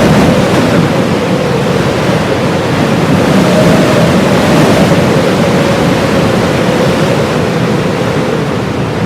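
Heavy blizzard wind blowing steadily, with a faint wavering howl running through it.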